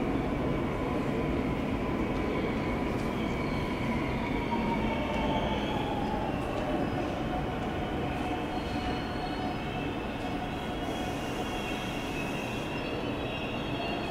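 Steady rumble of a train moving slowly through the station, with faint, thin high squeals from the wheels and brakes sliding slowly in pitch over it.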